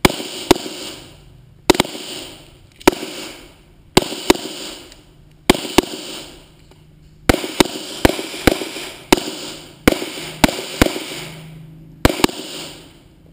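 A string of about fifteen gunshots at irregular intervals, some in quick pairs, each followed by a long echo that dies away over about a second.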